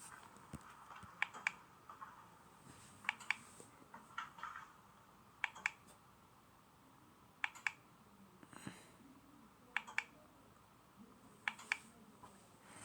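A series of faint, sharp paired clicks, two quick clicks together repeated roughly every one to two seconds.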